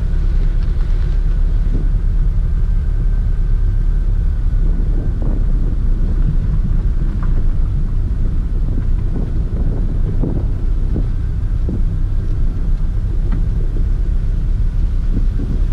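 Toyota MR2 Mk2 driving: a steady low rumble of engine and tyres, with wind buffeting the microphone of a camera mounted on the outside of the car.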